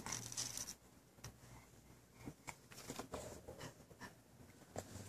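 Faint, scattered small clicks and light scrapes of a spoon as a baby is fed mashed apple.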